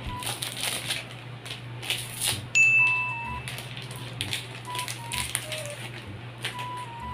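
Plastic snack wrapper crinkling as it is cut open with scissors and peeled off, over quiet background music with a short repeating melody. A brief high, steady beep about two and a half seconds in is the loudest sound.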